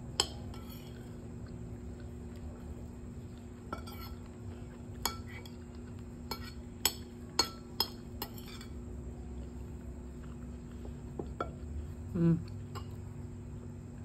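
Metal spoon clinking against a ceramic bowl along with the mouth sounds of eating, as scattered sharp clicks, most of them bunched around the middle, over a steady low hum. A brief voiced sound comes near the end.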